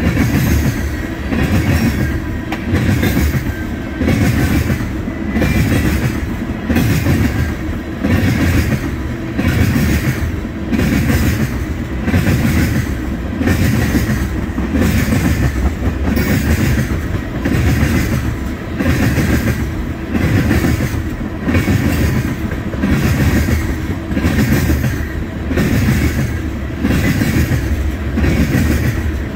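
Freight train of railroad tank cars rolling past close by: a steady rumble, with the wheels clacking over the rail joints in a regular beat that swells about every one and a half to two seconds as each set of trucks goes by.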